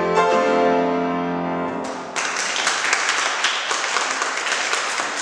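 Grand piano, played four hands, strikes a final chord that rings and fades for about two seconds; then audience applause breaks out and carries on.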